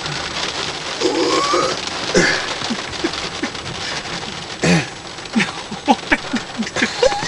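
Stifled laughter: short, breathy giggles coming in a quick run, over the steady patter of rain.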